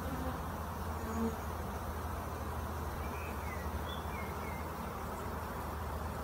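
Steady buzzing hum of a large honeybee swarm, thousands of bees on a sheet marching into their new hive.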